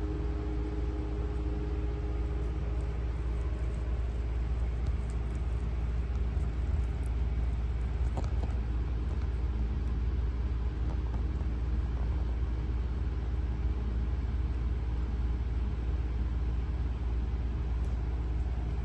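Steady low background rumble at an even level, with a few faint soft clicks in the middle.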